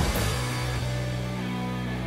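Background music with drums: the drum hits stop about half a second in, leaving sustained low held notes.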